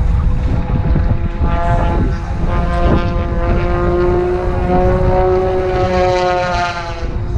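A propeller airplane's engine drones past, its steady note fading in and back out with a slight slide in pitch. Wind buffets the microphone underneath.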